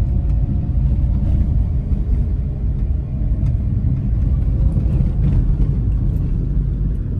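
A car driving along a road: a steady low rumble from the moving car, with a few faint ticks.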